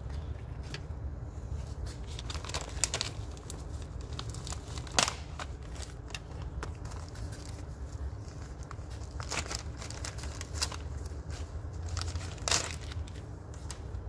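Plastic bag and paper instruction sheet crinkling and rustling as they are handled, in irregular sharp crackles, with a steady low hum underneath.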